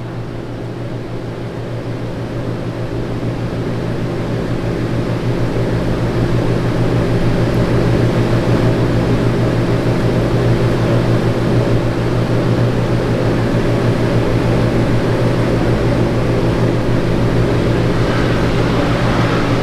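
A steady electric fan-motor hum that grows louder over the first several seconds and then holds level.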